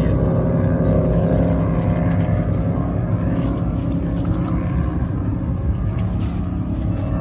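Racing powerboat's engines running flat out at high speed, a steady drone that slowly fades as the boat runs away.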